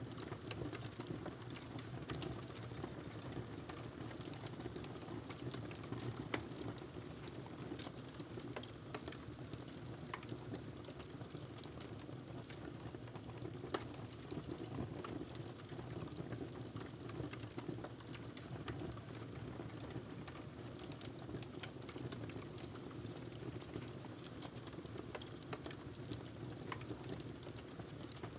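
Wood fire crackling in a fireplace: scattered sharp pops and snaps, two of them louder, over a steady low background noise.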